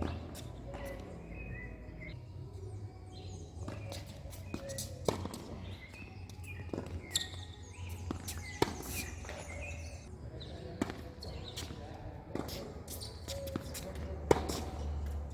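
Tennis ball being struck by rackets and bouncing on the court in a rally: sharp pops every second or two, over a low steady hum.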